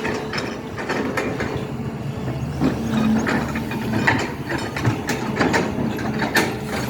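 SANY excavator's diesel engine running steadily, with irregular metallic clanks and knocks from the machine at work.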